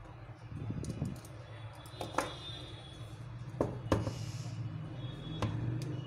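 Small sharp clicks and taps, about six in all, from a precision screwdriver working the tiny frame screws of a smartphone and the phone's parts being handled, with a brief scrape near the middle over a low steady hum.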